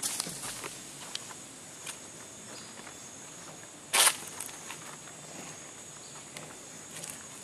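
Forest ambience: a steady high-pitched insect drone, with scattered soft clicks and scuffs and one short, loud scuffing noise about four seconds in.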